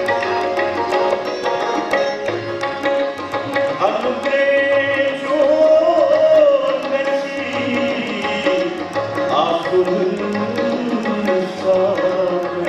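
A man singing in Indian classical style, drawing out long notes that bend and glide, with tabla keeping a steady beat and a sustained drone underneath.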